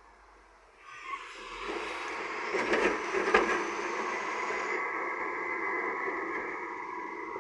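Heavy earthmoving machine working: its engine noise builds up about a second in and then runs steadily, with a few sharp knocks around the middle.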